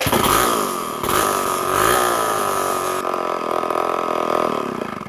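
Homelite 770D 95cc two-stroke chainsaw firing and running briefly on fuel squirted into the carburetor, its speed rising and falling unevenly. It cuts off suddenly after about five seconds.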